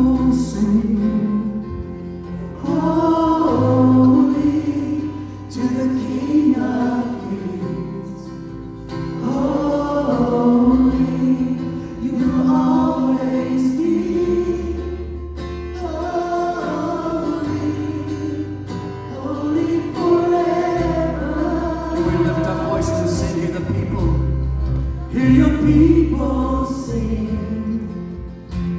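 Gospel music in a church: a choir singing phrases over bass and guitar accompaniment.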